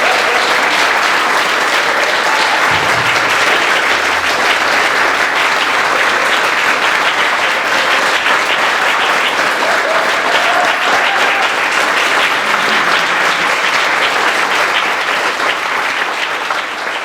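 Audience applauding: dense, steady clapping that begins to fade away near the end.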